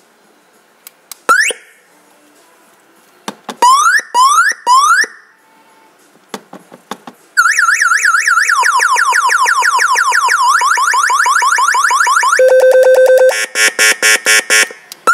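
Motorcycle anti-theft alarm sounding through its speakers as its key-fob remote is pressed: a single rising chirp, then three quick rising chirps with faint clicks between. A warbling siren then runs for about five seconds, followed by a short steady tone and a fast run of beeps near the end.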